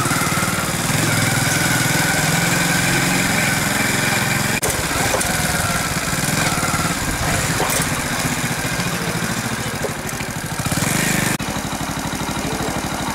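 An engine idling steadily with a regular low throb, the sound changing abruptly about four and a half seconds in and again near eleven seconds.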